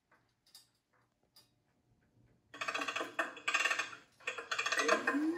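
Life-size animatronic doll prop twitching: after a pause of about two and a half seconds, its motor-driven twitching base rattles in three bursts of rapid clicking. Near the end, rising tones start up.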